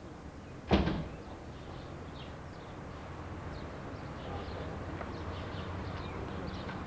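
A single loud slam, like a door shutting, about a second in, followed by a steady low rumble with faint high chirps over it.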